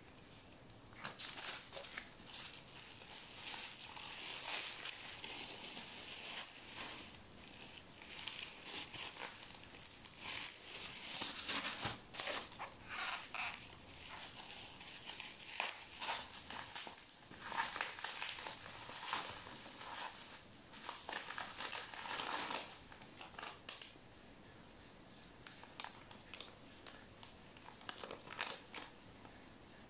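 Plastic packaging crinkling and rustling as it is handled, in irregular bursts for most of the time, thinning to a few scattered crackles near the end.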